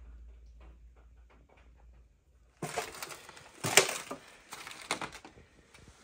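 Footsteps crunching and scraping over plaster debris and torn wallpaper on a wrecked floor, starting about two and a half seconds in, with one sharp loud crunch near the middle. A faint low rumble and a few light ticks come before.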